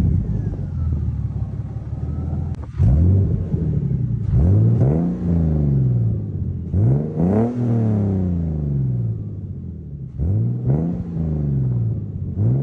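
Turbocharged BMW M52B28 2.8-litre inline-six revved about five times, each rev rising quickly and falling back, through a custom 3-inch single exhaust with resonator and muffler.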